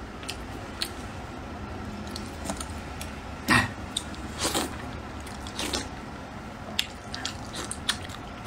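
Eating sounds from a man biting and chewing dumplings in chili-oil soup: wet mouth noises with scattered short clicks, loudest about three and a half seconds in and again a second later.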